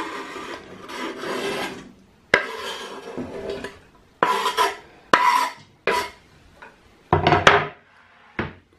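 Chef's knife scraping diced onion across a wooden cutting board into a pot: one long scrape, then several shorter strokes with a few sharp clicks of the blade.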